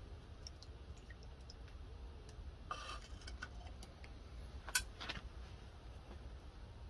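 A hot steel knife blade cooling in a bucket of quench oil, giving faint scattered ticks and crackles, with a short cluster of clicks a little before halfway and one sharper click just after halfway, over a low steady rumble.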